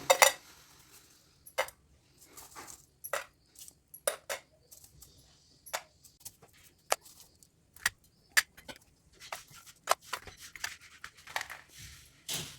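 Irregular light clicks and taps from small objects being handled, a dozen or more scattered through the stretch, the loudest near the start.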